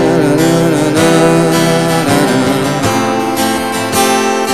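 Acoustic guitar strummed as song accompaniment, with a wavering melody line over it during the first couple of seconds.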